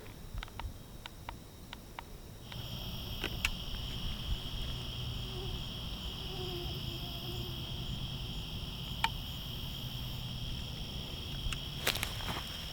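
Insects trilling in a steady, high, unbroken chorus that comes in abruptly about two and a half seconds in. A few scattered light clicks sound over it.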